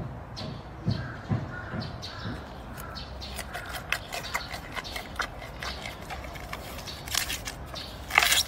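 Giant panda chewing and biting a bamboo shoot: a run of crisp crunching clicks, with a louder crunch near the end.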